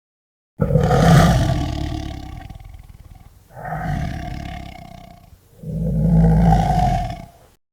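A large animal roaring three times, each roar starting suddenly and fading away; the last one cuts off abruptly.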